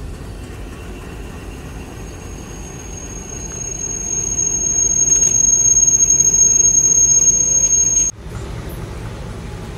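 Diesel-hauled passenger train rumbling past as it pulls in. A single steady high-pitched squeal from the wheels and brakes sets in about two seconds in, swells louder and cuts off abruptly about eight seconds in.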